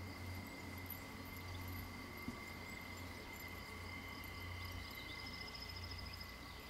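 Faint summer-meadow ambience: insects chirring steadily, thin and high, over a low steady hum, with one small click about two seconds in.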